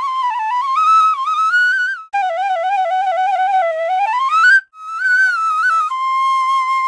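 Background music: a solo flute melody, one line of sliding, ornamented notes that breaks off briefly twice.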